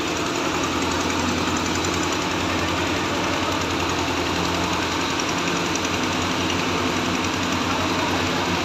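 Diesel engine of a Caterpillar hydraulic excavator running steadily while its arm digs wet earth out of a drainage channel.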